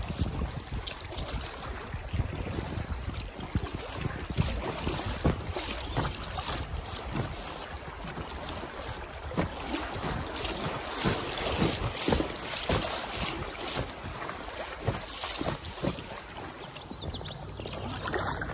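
Water splashing and lapping around an inflatable kayak under way, with many small irregular splashes. Gusty wind buffets the microphone throughout.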